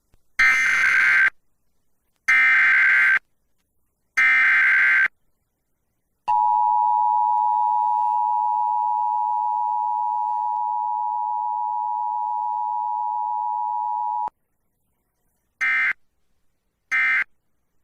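Emergency Alert System broadcast tones: three bursts of SAME data header warble, then the two-tone attention signal held steadily for about eight seconds before cutting off sharply. Two short end-of-message data bursts follow near the end, with no spoken alert message between the attention signal and the end-of-message.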